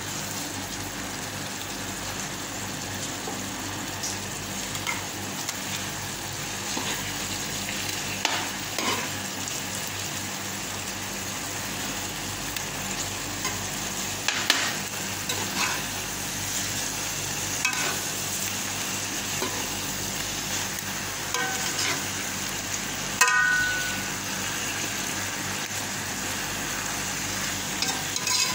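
Fish and vegetable stew sizzling steadily in a large nonstick pan, with a spatula stirring through it and scraping or tapping against the pan a few times.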